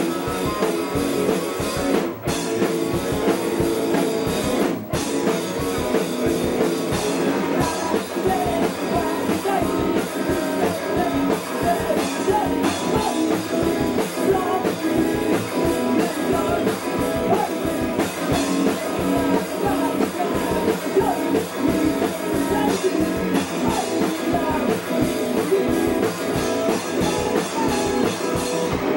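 A punk rock band playing live: electric guitar, drum kit and a man singing, recorded onto cassette tape. There are two brief stops in the first five seconds, then the song drives on.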